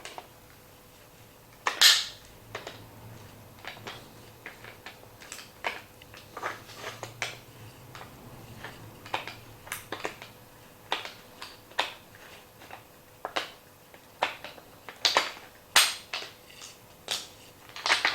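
Scattered clicks and knocks of small plastic and metal parts being handled as the pin is worked out of a washing machine door handle and the handle, spring and latch come apart. One sharper knock comes about two seconds in; the rest are lighter, irregular taps.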